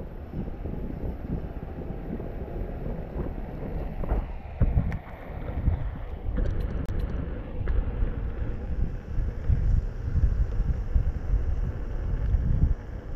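Wind buffeting the microphone of a camera carried on a moving electric unicycle: a gusty low rumble that rises and falls unevenly.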